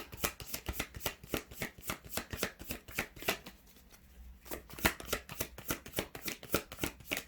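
Tarot cards being shuffled by hand: a rapid run of crisp card slaps and flicks, broken by a pause of about a second roughly halfway through.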